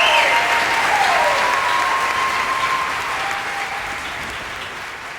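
Concert audience applauding, with a few whooping cheers rising and falling over the clapping in the first second or two; the applause fades out steadily.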